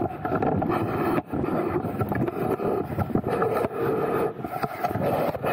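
Small camera drone's propellers whirring close by, a steady hum made of several wavering tones, with a brief dip about a second in.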